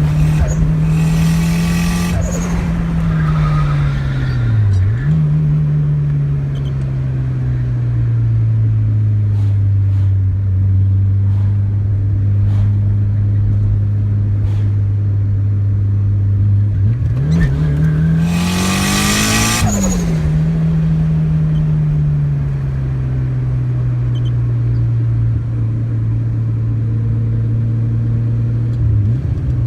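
Mitsubishi Lancer Evolution IV's turbocharged 2.0-litre 4G63 inline-four running steadily, dipping briefly about five seconds in. It revs up in a rising climb a little past halfway, with a loud hiss at the peak, then drops back, and starts rising again near the end.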